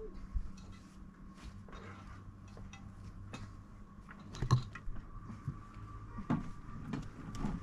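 Concrete blocks being handled and set into place on dirt and stones: scattered scrapes and small knocks, the loudest about four and a half seconds in and a few more near the end, over a steady low hum.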